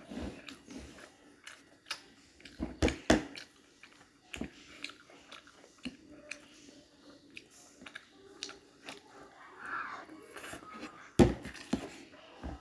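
A person chewing and biting food close to the microphone: irregular crunches and wet mouth clicks, with the sharpest, loudest bites about three seconds in and again near the end.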